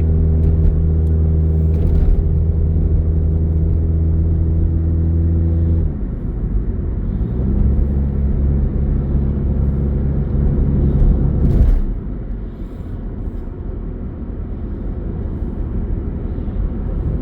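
Car engine running while driving, a steady hum whose pitch drops about six seconds in and rises again. About twelve seconds in the engine note fades, leaving a low road rumble.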